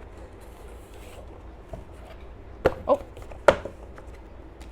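A shipping box being opened by hand: three short, sharp cardboard and packaging sounds about two and three-quarter, three and three and a half seconds in, over quiet room background.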